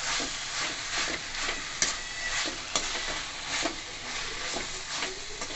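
Sliced onions and tomatoes sizzling as they fry in oil in a stainless steel kadai, while a slotted steel spatula stirs them, scraping and clinking against the pan at irregular intervals.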